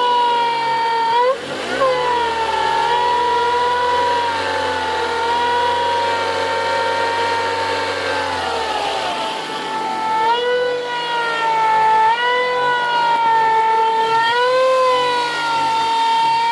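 A Ford EcoSport 2.0 engine bay giving off a high, wavering whistle, the odd noise the truck makes at start-up. A low hum comes in about two seconds in and dies away near nine seconds.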